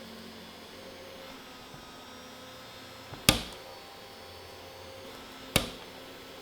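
Small electric desk fan running with a faint steady hum, broken twice by a sharp click about two seconds apart.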